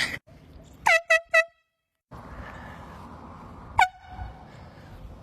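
Air horn sounded in three short, quick blasts about a second in, then one more short blast just before the four-second mark, with a steady background hiss between.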